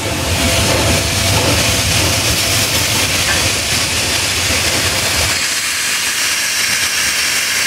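Steam locomotive No. 765 standing with steam hissing steadily, vented from its cylinder cocks at the front, over a low rumble that stops about five seconds in.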